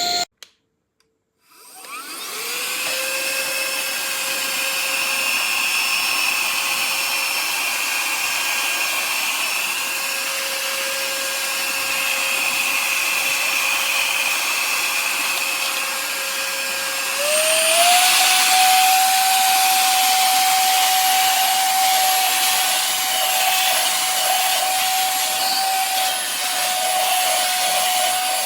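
Small high-speed motor of a cordless handheld vacuum and air duster, switched off and then spun back up to a steady whine with a rush of air. About two-thirds of the way through it steps up to a higher pitch and louder airflow, as when switched to a higher power setting.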